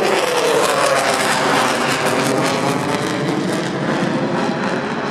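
Jet aircraft passing over with a loud, steady rushing noise.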